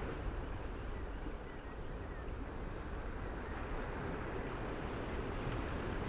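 Ocean surf breaking and washing up the shore: a steady rushing noise with a low rumble underneath.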